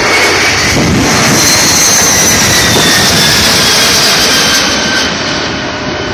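The four jet engines of the Boeing 747 Shuttle Carrier Aircraft, with Space Shuttle Discovery mounted on top, passing low overhead. A loud jet rumble carries whining tones that fall in pitch as the aircraft goes by, easing off near the end.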